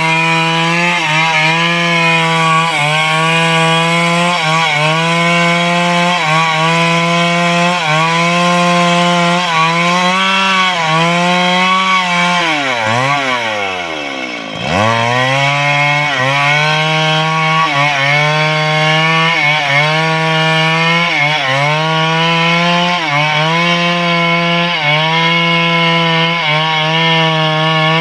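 Stihl MS 382 two-stroke chainsaw running at full throttle while cutting through wood, its pitch dipping slightly about once a second as it loads in the cut. About halfway through the engine slows sharply to a low pitch over a couple of seconds, then revs straight back up and carries on.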